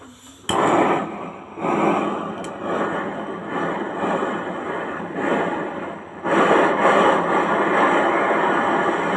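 Gas brazing torch flame hissing steadily as a refrigerator filter drier's copper joints are brazed. It starts suddenly about half a second in, dips briefly twice, and is louder in the last three seconds.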